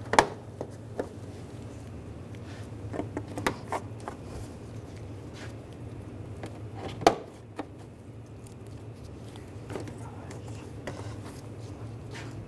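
Plastic push-pin retainers clicking as they are pressed in and locked into a plastic radiator cover panel: about ten separate sharp clicks spread out, the loudest about seven seconds in, over a faint steady hum.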